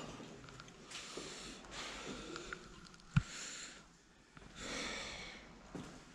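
A person breathing and sniffing close to the microphone, in several short noisy breaths, with light handling rustle and one sharp knock about three seconds in.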